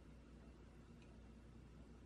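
Near silence: faint steady room tone with a low hum, and a single faint tick about a second in.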